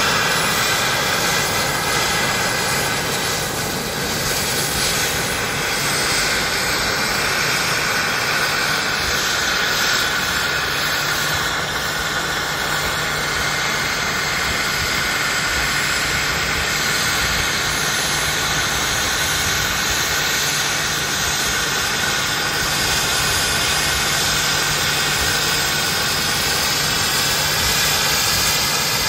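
Radio-controlled scale model Alouette II helicopter hovering low, its engine giving a steady high whine over the noise of its spinning rotors.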